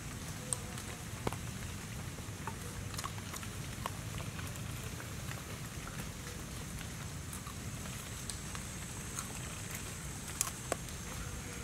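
Steady rain falling on forest foliage, with scattered drips and small clicks through it.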